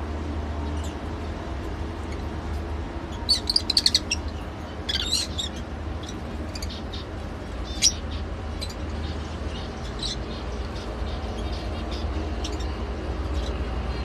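Caged lovebirds chirping: a quick run of high-pitched chirps about three seconds in, another cluster around five seconds, and one sharp call near eight seconds, with fainter chirps scattered between. A steady low rumble runs underneath.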